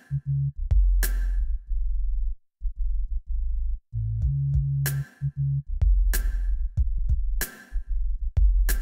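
Background electronic music: a drum-machine beat with a sharp hit about every second and a quarter over a deep synth bass line. The hits drop out for a few seconds in the middle while the bass carries on.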